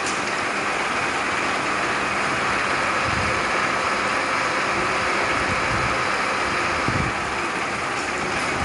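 Drilling machine running steadily as a 10 mm, 400 mm-long drill bit bores a deep hole into a thick metal flange: an even, continuous machine noise with a faint steady hum.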